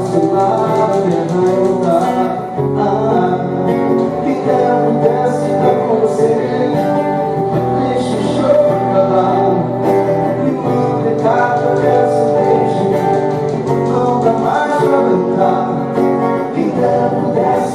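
A man singing a pop mashup to his own guitar accompaniment, voice and guitar played live without a band.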